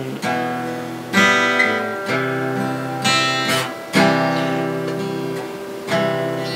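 Acoustic guitar strummed, chords struck about once a second and left to ring out between strokes.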